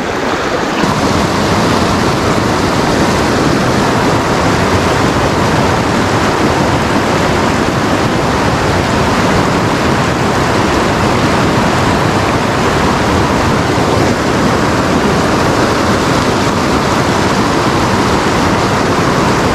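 Fast mountain river running over rocks: a loud, steady rush of water with no breaks.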